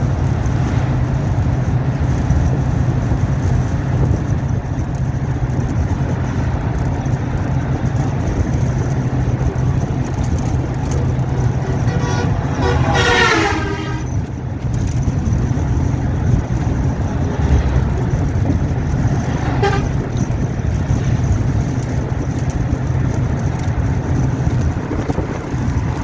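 A steady low rumble from a running vehicle, with a horn sounding for about a second and a half about halfway through and a short toot later.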